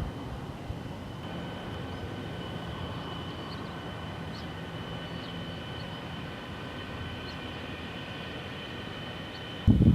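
Steady outdoor background noise with a faint, steady high-pitched tone running through it. Near the end, a sudden loud, low, gusting rumble sets in.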